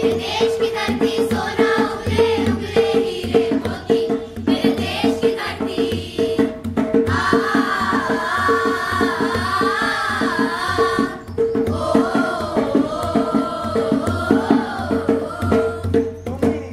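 Double-headed hand drum beaten in a steady folk rhythm, with a group of voices singing along through the middle and later part.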